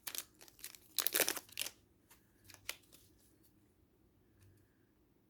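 Plastic wrappers of Pokémon card packs crinkling and tearing as a pack is opened by hand, loudest about a second in. The rustling stops after about two seconds, followed by a few light taps.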